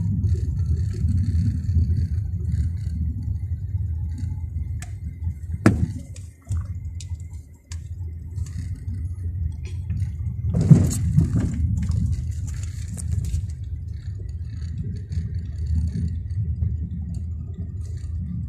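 Steady low engine and road rumble heard from inside a slowly driving car's cabin, with a sharp knock about six seconds in and a louder rattling scrape around eleven seconds in.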